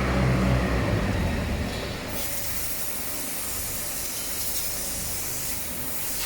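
A low mechanical hum dies away in the first two seconds. A steady, strong hiss of air starts about two seconds in, runs for about four seconds and then cuts off.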